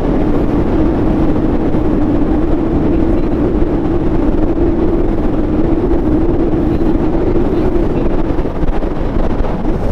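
Motorboat's outboard engine running at steady speed with a constant drone, mixed with wind buffeting the microphone.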